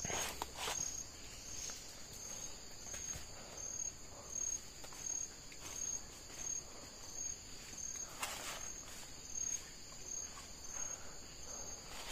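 Rainforest insect chorus: a steady high-pitched buzz with a pulsing chirp repeating about one and a half times a second, with soft steps through the undergrowth now and then.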